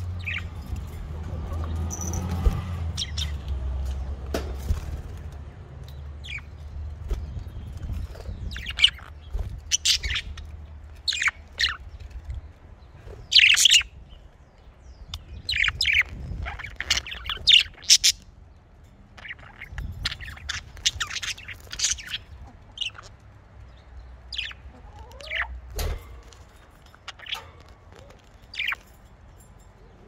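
Pet budgerigars chirping: many short, high chirps, some coming in quick runs, busiest through the middle. A low background rumble fades out about twelve seconds in.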